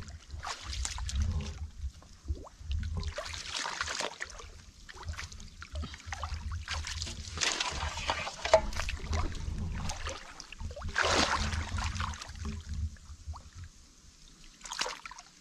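Muddy shallow water sloshing and splashing in irregular bursts as a man wades and gropes through it with his hands, fading down near the end.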